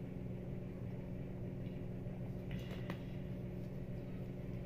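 A steady low mechanical hum, with a few faint clicks and rustles about two and a half to three seconds in from a plastic water bottle being drunk from and handled.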